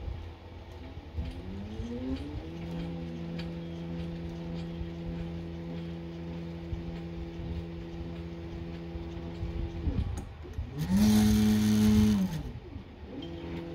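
Nema 23 stepper motors on a homemade CNC gantry whining at a steady pitch as they drive the pen along the outline, the tones gliding up as the motion starts. Near the end the pitch dips and rises again while a louder rushing noise comes in for about a second and a half.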